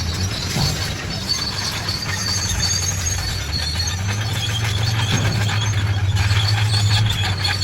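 Crawler bulldozer's diesel engine running steadily under load, growing a little louder about halfway through, with high squeals and light clanks from its steel tracks.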